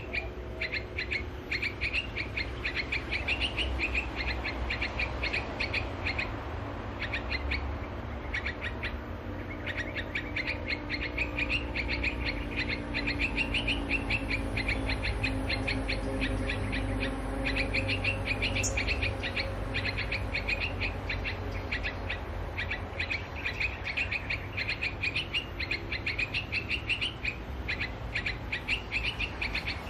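Small songbirds chirping in rapid runs of sharp, high notes with short pauses, over a steady low rumble.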